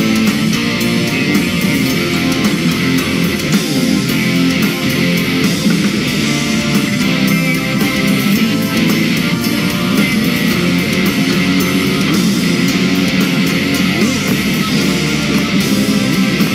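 Live rock band playing: electric guitar, electric bass and drum kit with a steady beat.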